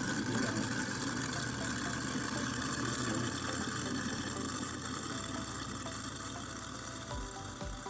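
Garbage disposal motor running steadily, a loud hum with a rushing, grinding wash. Background music with a beat fades in near the end.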